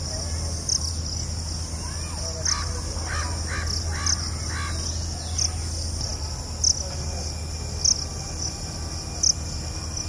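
Field ambience of insects trilling steadily at a high pitch, with a louder chirp every second or so. A few seconds in, a bird gives four harsh calls in quick succession.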